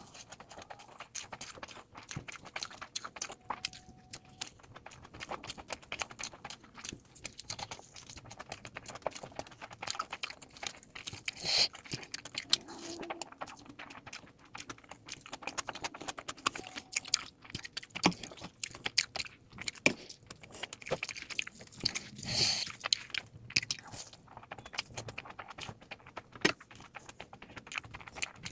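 Close-miked eating sounds: a person chewing, biting and smacking wet food in a rapid, irregular stream of clicks and crackles, sped up to double speed. A louder, noisier burst comes twice, about a third and three quarters of the way through.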